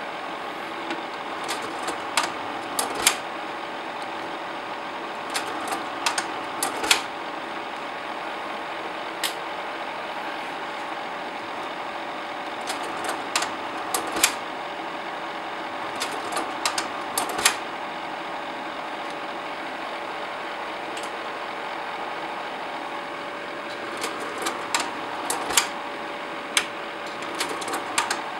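Sears Automatic 500 slide projector running: its cooling fan hums steadily with a constant tone, and every few seconds the slide-change mechanism cycles with a quick run of sharp mechanical clicks and clacks.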